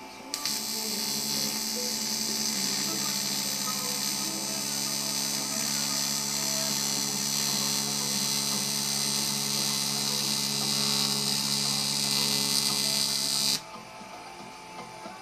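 AC TIG welding arc on aluminium from a Fronius Magic Wave 2200 inverter: a steady buzz with a bright hiss over it. It strikes with a sharp click about half a second in and cuts off abruptly near the end.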